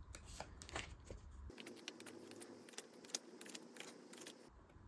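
Faint rustling and soft ticks of paper as the pages of a printed booklet are turned by hand.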